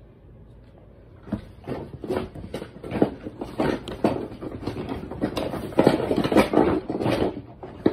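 Handling noise close to the microphone: about a second in, an irregular, fast run of knocks and rubbing begins over a faint steady hum and keeps going.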